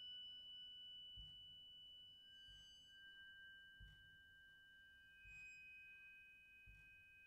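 High, pure ringing tones of small tuned metal percussion: one note sounds at the start and two more join about two and five seconds in, each ringing on and overlapping the others. Underneath, faint low thuds keep a slow even pulse, about one every second and a half.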